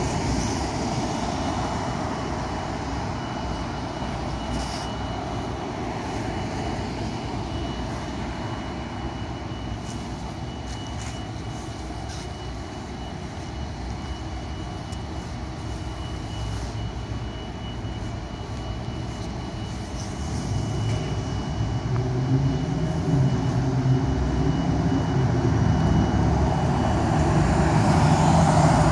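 Street traffic: a steady rumble of passing vehicles with a faint, steady high-pitched tone. In the last several seconds a vehicle's engine grows louder as it approaches.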